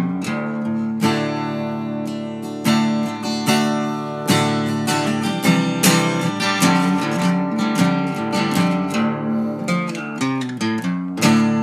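Background music: acoustic guitar picking and strumming, ending on a chord that rings out near the end.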